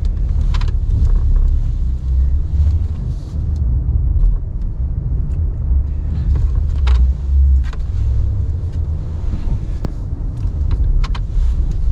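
Ram 1500 Classic pickup's engine running with a steady low rumble as the truck plows snow, with a few sharp clicks or knocks.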